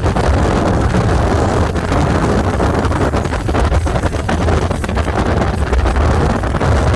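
Wind buffeting the microphone aboard a boat under way, a loud steady rush over a heavy low rumble.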